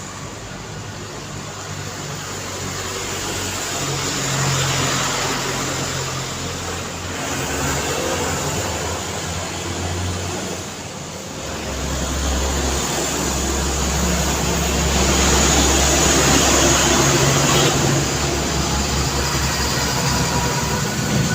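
Busy road traffic with vehicles passing in a steady stream of engine and tyre noise. About halfway through, a deep, heavy engine rumble grows louder, as of a large truck passing close by.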